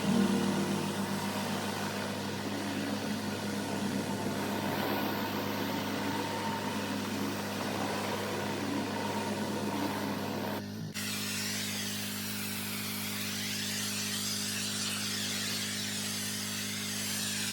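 Pressure washer running steadily: an engine hum under the hiss of high-pressure water spraying on concrete. About eleven seconds in the sound changes abruptly to a brighter spraying hiss over the same kind of hum.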